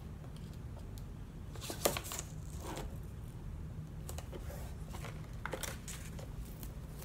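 Tape and paper envelopes being handled at a table: a few light clicks and taps, the sharpest about two seconds in, over a low steady hum.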